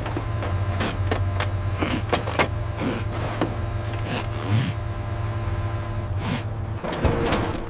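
A low steady mechanical hum with scattered clicks and rattles over it, stopping a little before the end.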